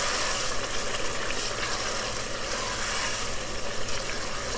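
Onion and tomato stew base sizzling and bubbling steadily in a pot, frying in oil with a splash of water added.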